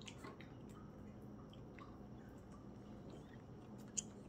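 Tabby cat licking yogurt off a spoon: faint, small, wet clicks. About four seconds in comes one sharp click as the metal spoon knocks against the plastic yogurt cup while scooping more.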